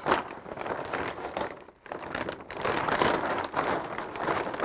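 Plastic vapor-barrier sheeting crinkling and rustling in irregular bursts as it is spread over a crawl-space dirt floor.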